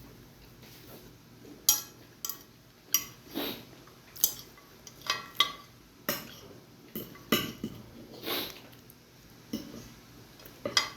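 Cutlery clinking and knocking against a plate or bowl while eating, about a dozen irregular sharp clinks.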